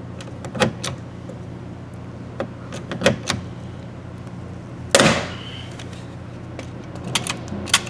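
A pop rivet being set with a hand rivet gun: a few short clicks as the handles are squeezed, then one loud sharp snap about five seconds in as the mandrel breaks off and the rivet sets, followed by a few more light clicks.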